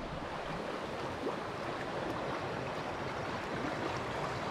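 Shallow stream water flowing steadily, an even rushing sound.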